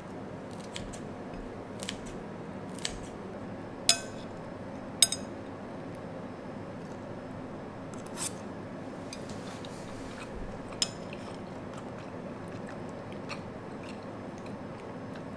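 Kitchen scissors snipping through garaetteok rice cake sticks, with metal tongs and chopsticks clicking against a glass plate: about ten sharp clicks, irregularly spaced, the loudest two with a brief ring, over a steady low hum.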